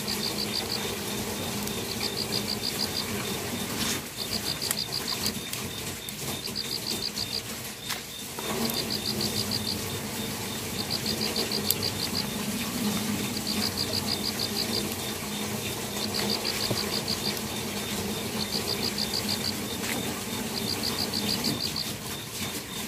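An insect chirping in regular, rapid pulsed trills, one trill about every second, over a steady low hum, with a few sharp clicks.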